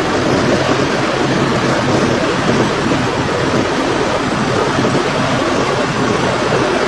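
Diesel engine of a 1999 Peterbilt 379 semi truck idling, a loud, steady, even noise with a faint low hum.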